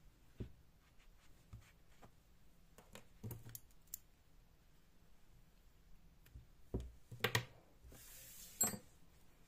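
Faint clicks, taps and scratchy rustling from hands handling a plush-yarn crocheted toy and small tools, with a cluster of louder taps about seven seconds in and a short rustle just after.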